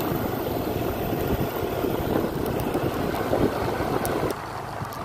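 Motorbike riding noise: an engine running under a dense rush of wind over the microphone. The sound drops abruptly a little over four seconds in.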